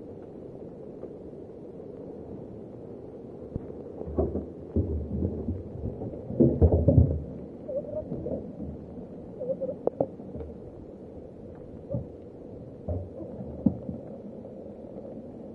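An empty rusty steel drum is tipped and rolled on its rim over wet, muddy ground, giving hollow knocks and a rumbling scrape, loudest about six to seven seconds in. A few sharp taps follow. Steady rain hiss runs underneath.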